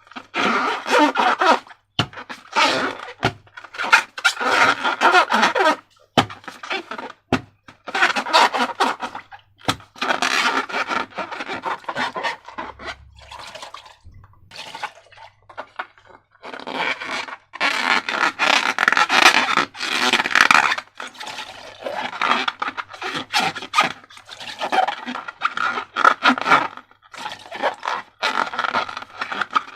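Slime being handled, squeezed and worked by hand: irregular bursts of wet, squishing noise with a few sharp clicks, and a short lull about halfway through.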